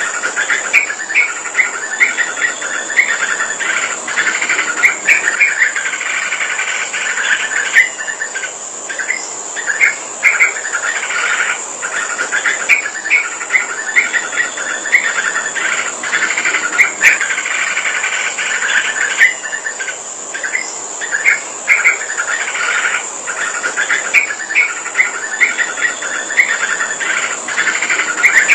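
Yellow-vented bulbul (trucukan) singing, repeating phrases of quick bubbly chirps a few seconds long with short pauses between, over a steady high-pitched shrill tone.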